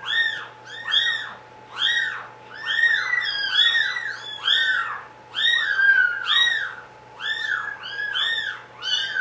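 Young kittens mewing over and over, high calls that rise and fall in pitch, about two a second and sometimes overlapping as several cry at once.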